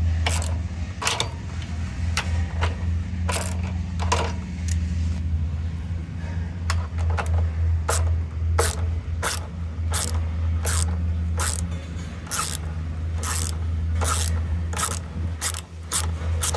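Hand tools clicking and knocking against the metal parts of a washing machine being dismantled: sharp single clicks, getting more frequent, about one to two a second in the second half, over a steady low hum.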